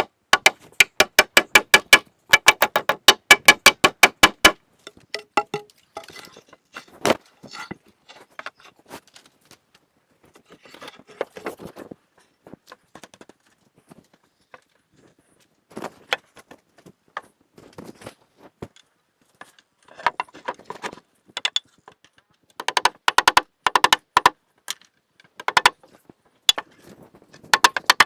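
Rapid runs of sharp, ringing knocks, about five a second, at the start and again near the end, with scattered single knocks between.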